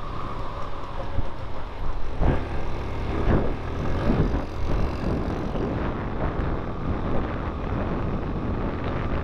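Motorcycle engine running at road speed, with wind rushing over the microphone; the engine note rises and falls a few times a couple of seconds in.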